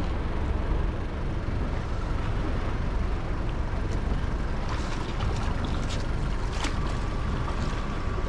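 Wind rushing over the microphone with water lapping around a small boat, a steady noise heavy in the low end. A few light clicks come through in the middle.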